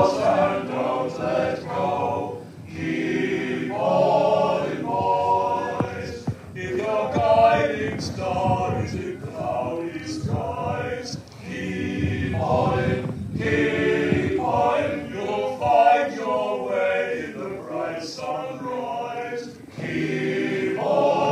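A group of voices singing unaccompanied, in phrases with short breaths between them, in the manner of a sea-shanty group.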